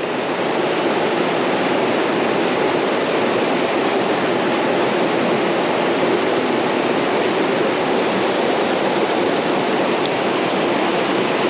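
Creek water rushing steadily over rocks, a constant running-water noise.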